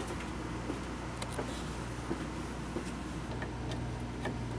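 Steady low mains hum of a small submersible pump in a water bucket, circulating cooling water through the CO2 laser tube's water jacket, with a few faint ticks.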